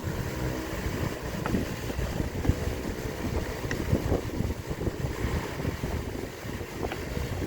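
Low rumbling wind noise on the microphone, with a few light knocks from parts being handled as the steering wheel is fitted back onto the steering column.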